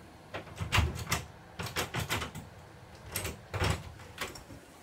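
Knocking on a hard surface, in three quick groups of a few knocks each.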